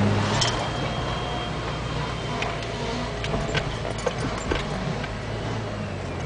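Car rolling slowly with a rubbing noise from the passenger-side front wheel, heard as irregular sharp ticks and squeaks over the steady engine and road hum.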